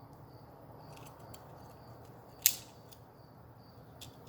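Light clicks and taps of small carburetor parts and a jet tip cleaner being handled, with one sharp click about halfway through.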